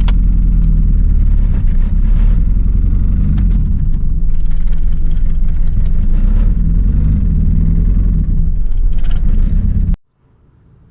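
Proton Wira's 4G93 1.8 turbo engine running rough, like three cylinders, while the car is driven; the sound cuts off suddenly near the end. The owner puts the roughness down to bent connecting rods on pistons 1 and 2.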